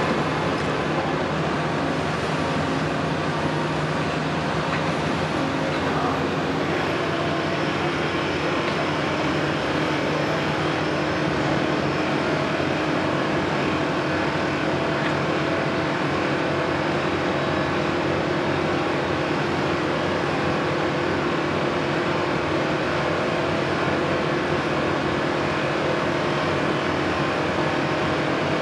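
Caterpillar tracked hydraulic excavators at work, their diesel engines running as a steady drone under load while they dig and slew.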